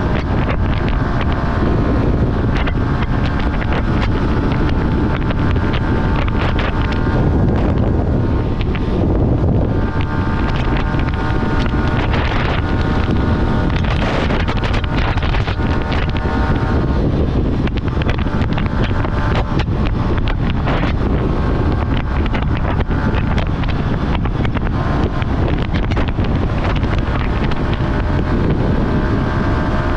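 Yamaha R15 motorcycle's single-cylinder engine running while riding, its pitch shifting several times with throttle and gear changes, with heavy wind noise on the microphone.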